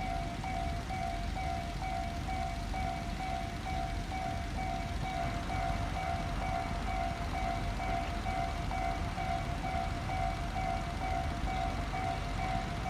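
Japanese railway level crossing's electronic alarm bell ringing steadily, two tones alternating in an even "kan-kan" rhythm, over a low steady background rumble.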